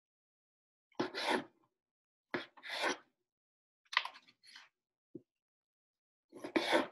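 Serrated knife sawing through soft grape tomatoes on a cutting board, to quarter them: about five short cutting strokes, roughly a second apart.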